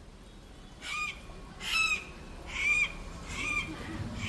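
A bird calling repeatedly: short, high, squawking calls, about one a second, starting about a second in.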